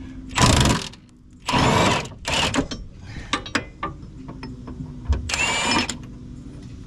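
Impact wrench fired in four short bursts, running a suspension bolt loose on a car's rear strut, with clicks and clatter of the tool and socket between bursts.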